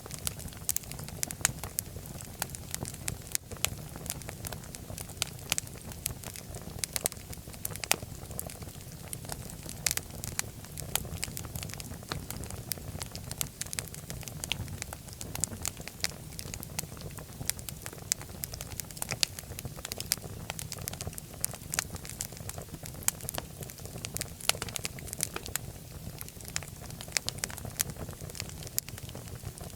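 Wood fire burning in a fireplace, crackling and popping in irregular sharp snaps over a steady low rumble of flame.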